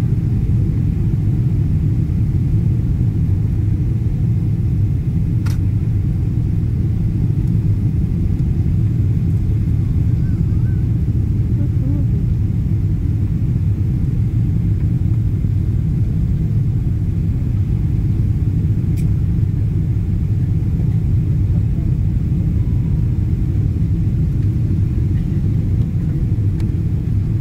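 Airliner cabin noise during the landing approach: a steady low rumble of engines and rushing air heard from a passenger seat, with two faint clicks.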